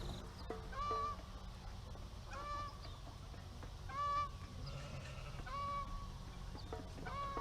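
A farm bird giving short, level-pitched calls, one about every second and a half, five in all, over a steady low rumble.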